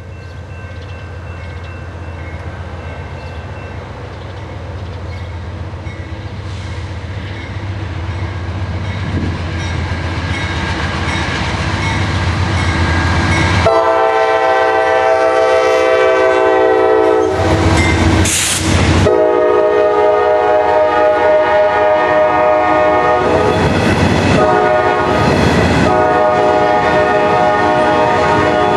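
Norfolk Southern diesel freight locomotives approaching, their engines' low rumble growing steadily louder. About halfway in, the lead locomotive's air horn starts blowing and keeps sounding as the engines pass, over the clatter of the wheels on the rails.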